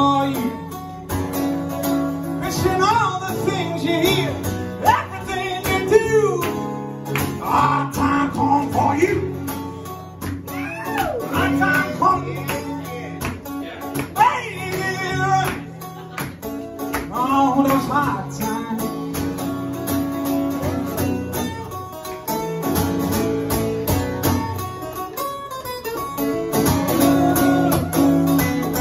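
A man singing with his own acoustic guitar, live. The singing stops for the last several seconds and the guitar plays on alone.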